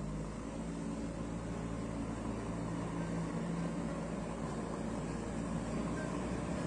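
JCB 3DX Super backhoe loader's diesel engine running steadily under load as the machine drives forward pushing soil with its front loader bucket.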